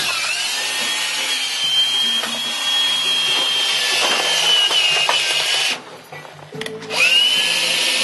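DeWalt cordless drill driving a screw into a wooden screed board, its motor running with a steady whine. It stops a little under six seconds in and spins up again about a second later.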